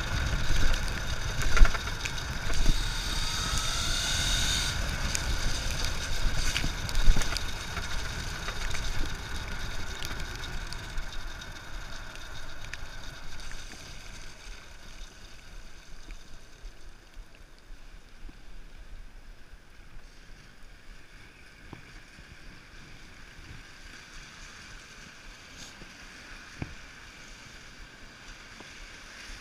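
Small electric motorcycle riding on a wet road: a thin motor whine that rises in pitch as it speeds up, over wind rush and tyre hiss on wet asphalt. About halfway through the whine and rush fade to a quieter hiss as the bike slows.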